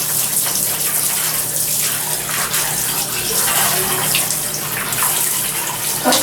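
Steady running water, rinsing the oil and dirt off a Honda CB400 motorcycle cylinder head during its cleaning.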